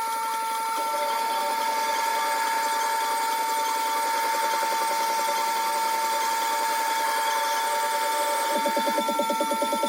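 Güde wet-stone sharpening grinder running with a steady whine over a rapid rhythmic pattern, which grows stronger about eight and a half seconds in.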